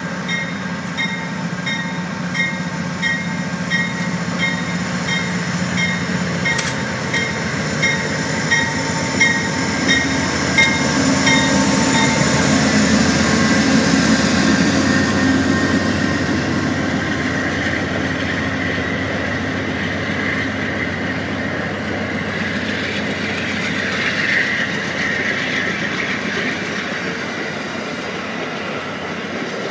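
Amtrak GE Genesis diesel locomotive passing with its engine running and its bell ringing about twice a second. After about ten seconds the bell stops and the stainless-steel Amfleet passenger cars roll by, their wheels rumbling and clicking over the rail joints. There is a brief wheel squeal about two-thirds of the way through.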